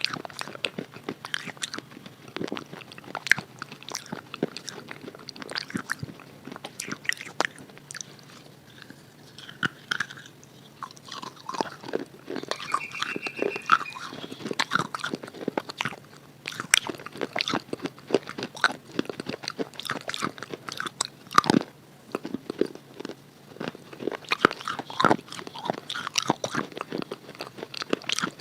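Biting and chewing of a crunchy red chalk (khadi) bar coated in chalk paste: a steady run of sharp crunches and cracks, sparser for a few seconds around the middle.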